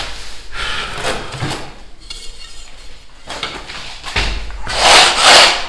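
Gypsum decorative-stone tiles and tools being handled: light clattering and knocking, then two loud scraping strokes near the end, like a tile edge being rasped.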